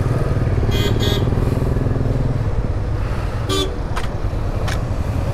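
Motorcycle engine running steadily under wind noise as the rider moves off, with short horn toots: two quick beeps about a second in and another around three and a half seconds.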